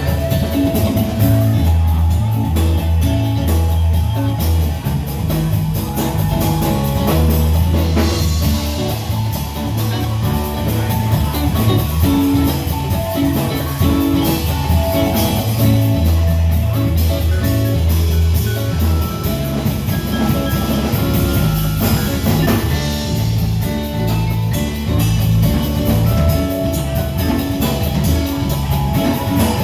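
Live band playing an instrumental: electric bass line, electric guitar, vibraphone and drum kit with cymbals, keeping a steady groove.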